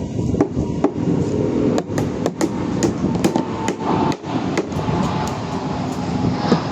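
Hammer blows struck one after another at an uneven pace, roughly two a second, over a steady hum.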